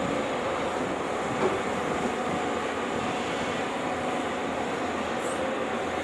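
Heavy construction machinery, such as an excavator, with its engine running steadily, a constant mechanical drone with faint steady tones.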